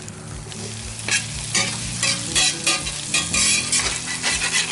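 Spatula scraping and turning diced potatoes and onions in a sizzling Field Company No. 12 cast iron skillet. Scrapes come about twice a second over a steady frying sizzle.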